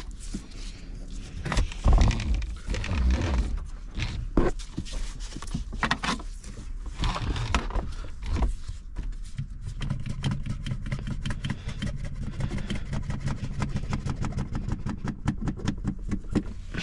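Irregular scraping, clicking and knocking of hand-tool work on a pickup truck's windshield area, with a steady low hum joining about ten seconds in and a run of fast ticking near the end.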